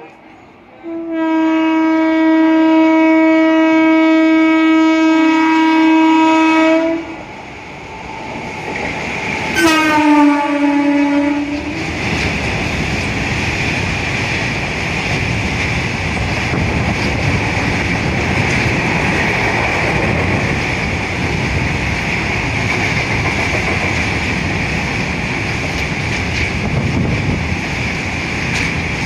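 WAG-7 electric locomotive's horn: one long steady blast, then a second shorter blast about ten seconds in that falls in pitch as the locomotive passes. After it comes the steady rumble and clickety-clack of a long rake of covered goods wagons rolling past.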